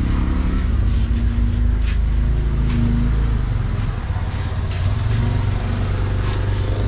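Steady low rumble of motor traffic running on the road close by, with a faint engine hum.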